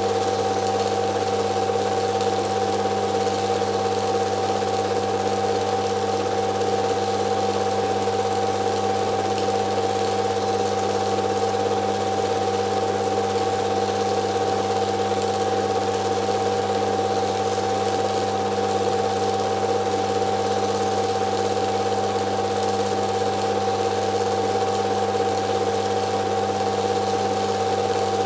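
Film projector running: a steady motor hum and mechanical whir that stays the same throughout.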